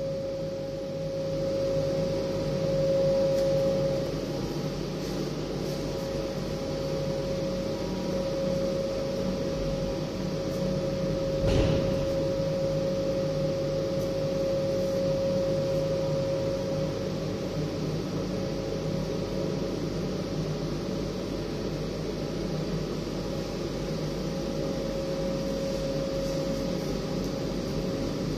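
Oral dissolving film strip machine running: a steady whirring hum of fans and motors with a clear steady tone through it, and a single knock about twelve seconds in.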